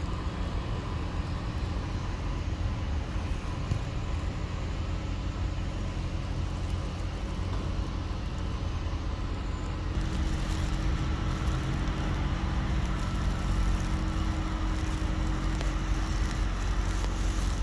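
Street traffic: a steady low rumble of road vehicles. About ten seconds in it grows louder as a nearby vehicle's engine joins in and keeps running steadily.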